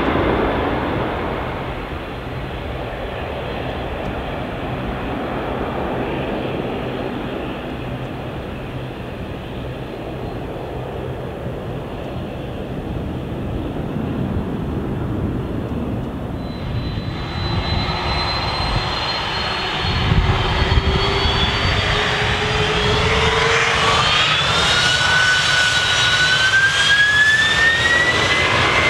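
Boeing 767-300ER jet takeoff on General Electric CF6 turbofans. First a steady jet roar that slowly fades as the airliner climbs away. About 16 seconds in, a second 767's engines spool up to takeoff power, with several whine tones rising in pitch over the growing roar of its takeoff roll.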